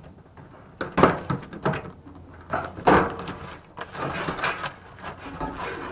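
Two sharp snaps about two seconds apart, with lighter clicks and rattling between: wire cutters snipping through wires inside a microwave oven's metal cabinet.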